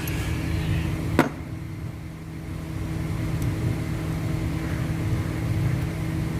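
A steady low mechanical hum, with one sharp click about a second in as a socket wrench works the 8 mm bolt holding the camshaft position sensor.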